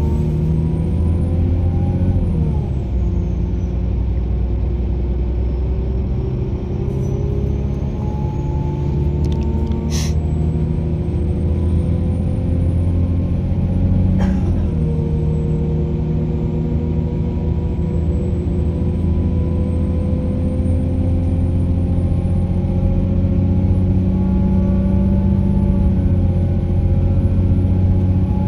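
A vehicle running with a steady low rumble and a motor whine that falls in pitch about two seconds in, then climbs slowly as it gathers speed. Two short clicks sound about ten and fourteen seconds in.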